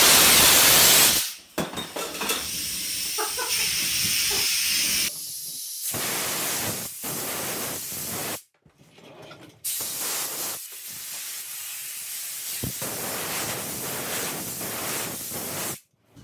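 High-pressure air blasting out of the opened valve of a 45-minute SCBA air bottle as it is drained, a loud hiss in several long blasts with short breaks between them. The first blast is the loudest, and the last cuts off suddenly just before the end.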